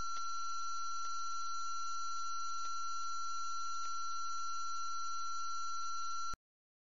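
A steady, high electronic tone held at one pitch, with a few faint clicks in it, cutting off suddenly near the end.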